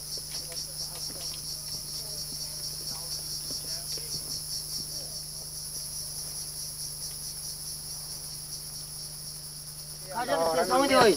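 Chorus of insects in forest, a continuous high-pitched buzz that pulses rapidly and evenly. A person's voice cuts in loudly about a second before the end.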